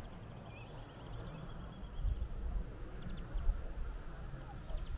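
Outdoor rural ambience: uneven low gusts of wind rumbling on the microphone, with a few faint bird chirps.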